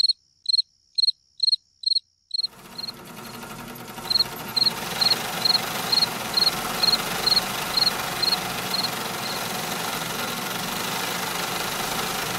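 Cricket chirping in a steady, even rhythm of about two chirps a second. About two and a half seconds in, a broad steady noise swells up and grows louder, and the chirps fade out under it a few seconds later.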